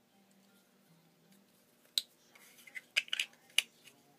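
Clicks of a folding knife against a Kydex sheath as the knife is handled: one sharp click about halfway through, then a quick run of small clicks near the end.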